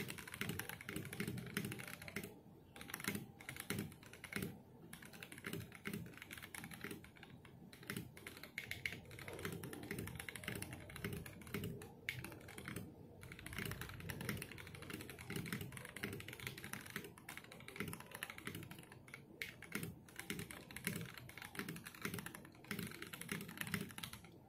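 Typing on a custom mechanical keyboard: Monstagear XOv2 aluminium case, brass plate, lubed and filmed Holy Boba tactile switches on 67 g springs, and PBT keycaps. Rapid, continuous keystrokes with a short pause every few seconds.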